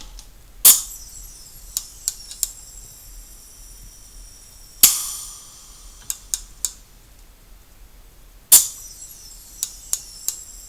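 Air-cylinder-driven hand crimper cycling three times: each cycle a sharp burst of air, once with a short hiss after it, followed by three light clicks. The retract now returns the crimper all the way on its own.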